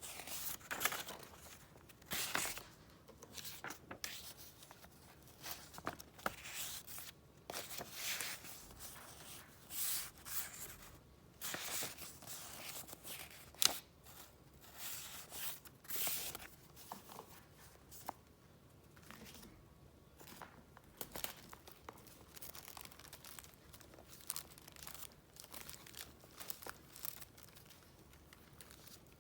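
Paper and packaging handled close up: repeated, irregular rustling and crinkling, with one sharp tap about 14 seconds in.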